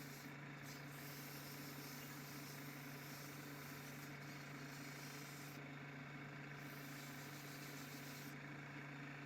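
Electric motor running steadily: a constant low hum with a hiss over it.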